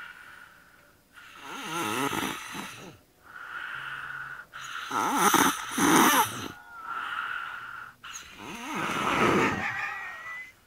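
A woman snoring heavily in her sleep: about four long, rattling snoring breaths, the loudest a little past the middle.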